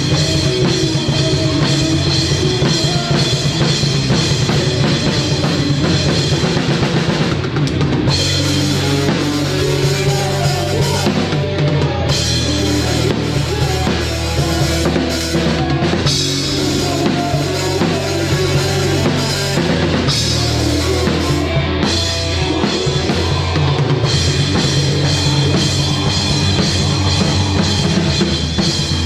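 A live rock band playing loud, heard from right behind the drum kit: bass drum, snare and cymbals lead over electric guitars and bass.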